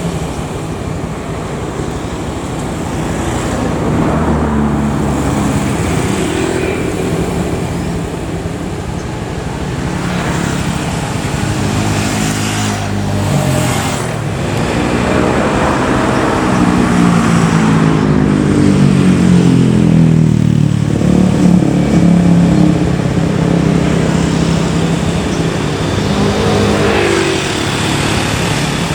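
Scania K410 bus running on the road while its basuri horn, a multi-tone telolet air horn, plays a tune in stepped pitches that rise and fall. The horn is strongest in the second half, over steady engine and road noise.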